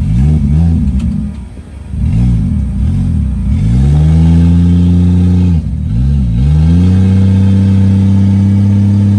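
Off-road 4x4 mud truck's engine revving: a few quick rises and falls in revs, then held high and steady for several seconds, with one brief drop and rev-up near the middle.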